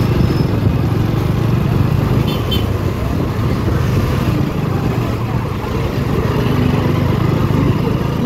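Motorcycle being ridden through a street: a steady low rumble of engine and road noise, unbroken throughout.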